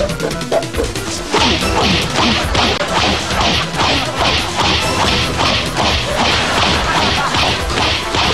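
A rapid series of comic face-slap sound effects, about three a second, starting about a second in, over background music.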